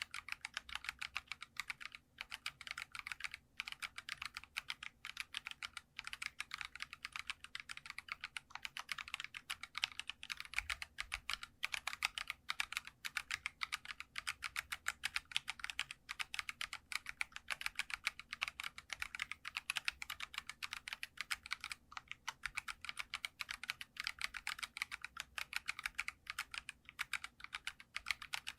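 Continuous fast typing on a Geekstar custom mechanical keyboard, a steady stream of light, clacky keystrokes with a few brief pauses.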